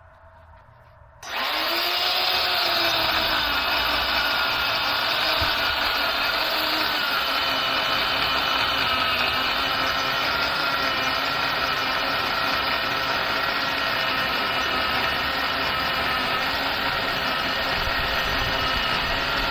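Worx corded electric chainsaw starting suddenly about a second in and running steadily as it cuts through maple, its motor whine wavering slightly under load.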